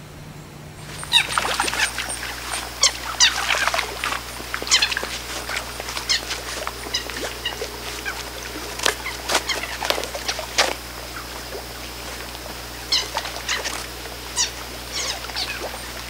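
Leopard frogs startled at a duckweed-covered pond: many short squeaks, each falling quickly in pitch, mixed with soft plops as they leap into the water. They come in clusters, densest in the first few seconds, again around nine to eleven seconds in, and near the end, over a faint steady insect buzz.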